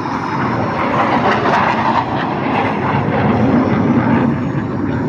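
Military jet aircraft flying past, a loud steady jet roar.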